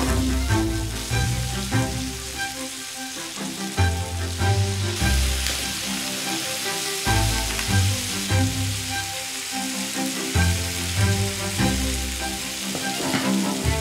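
Shrimp, cherry tomatoes and garlic sizzling in a hot frying pan, the sizzle growing louder about five seconds in. Background music plays along.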